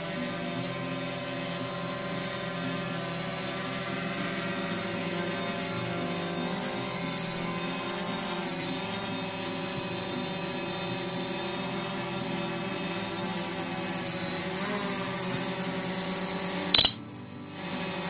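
Quadcopter drone hovering, its propellers and motors giving a steady multi-pitched whine that wavers slightly as it adjusts. Near the end a sharp click, and the whine drops away for a moment.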